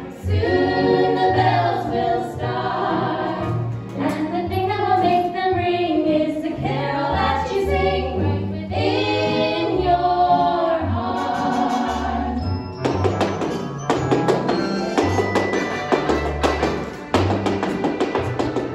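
Three women singing a Christmas song in harmony into microphones over a backed bass line. About two-thirds of the way through the voices drop away and a quick run of sharp rhythmic clicks plays over the music.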